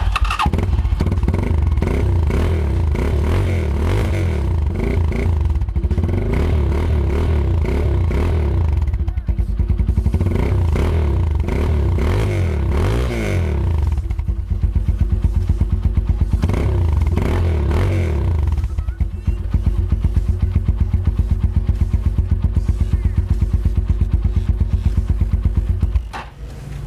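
Single-cylinder engine of a Z200S motorcycle running through its stock Rusi Gamma exhaust pipe, revved up and down several times, then held at a steady fast pulse before it stops near the end.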